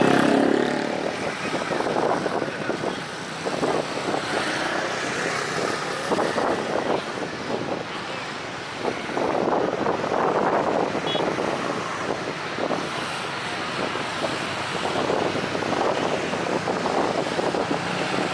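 Jet aircraft engines running, a steady noise that swells and fades, mixed with road traffic.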